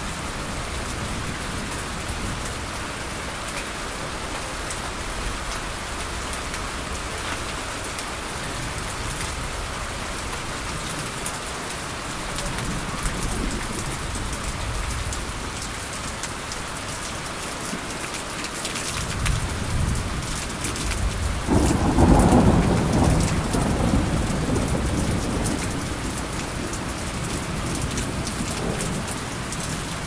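Steady rain with a rolling rumble of thunder that builds about two-thirds of the way in, peaks, and dies away over several seconds.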